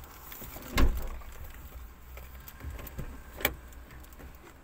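Plastic packaging being handled: light rustling and small clicks, a heavy thump about a second in followed by a brief low rumble, and a sharp click about three and a half seconds in.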